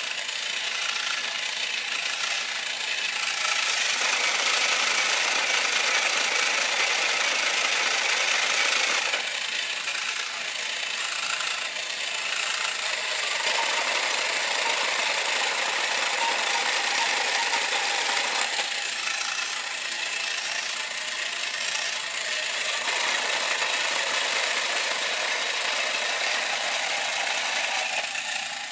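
Battery-operated Thunder Robot toy walking: its small electric motor and gears whir and rattle steadily, louder in stretches of a few seconds.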